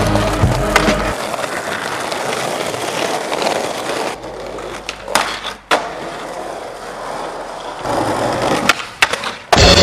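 Skateboard wheels rolling on concrete, with sharp clacks of the board hitting the ground: one about a second in, two about five seconds in, and a quick run of them near the end.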